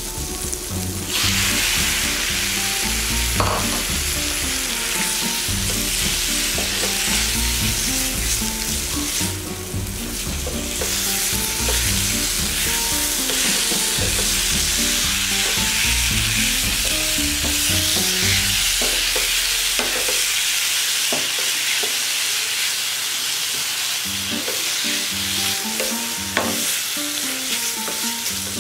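Squid rings sizzling in hot oil and masala in a frying pan while being stirred with a spatula. The sizzle jumps up about a second in, as the wet squid goes into the pan, and then holds steady, with an occasional click of the spatula against the pan.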